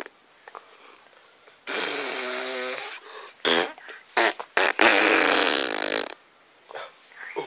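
Lip raspberries being blown: a pitched one lasting over a second about two seconds in, three short ones, then a longer, noisier one around five seconds in.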